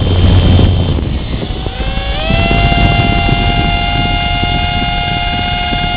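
Litehawk Pro coaxial RC helicopter's electric motors and rotors running with a rough whir; about two seconds in, a high-pitched whine rises and then holds steady, dropping away at the very end. The whine comes from the motor driving the top rotor, the sign of a failing motor that doesn't get enough power, so the helicopter spins clockwise instead of taking off.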